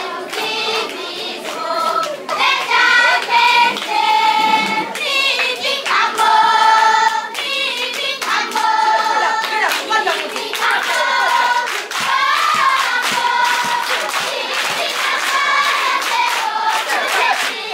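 A large choir of schoolchildren singing together, the notes held and changing in short phrases, with hand clapping throughout.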